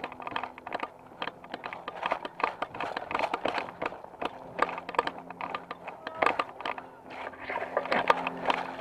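Loose camera mount rattling in quick, irregular clicks as the wearer moves, with a faint low hum underneath from about halfway.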